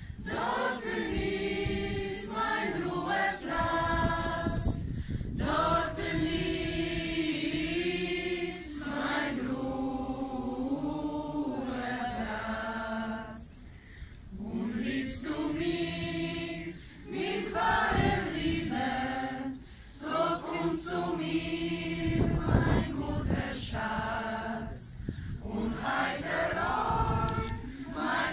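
A choir of voices singing a song together in long held phrases, with a couple of short pauses between phrases midway.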